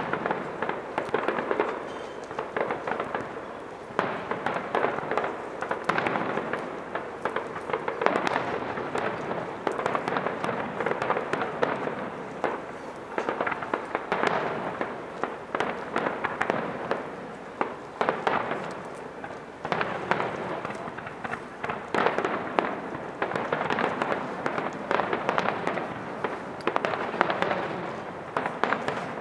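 Fireworks display: dense crackling and popping from many small bursts, swelling and easing in repeated waves every couple of seconds.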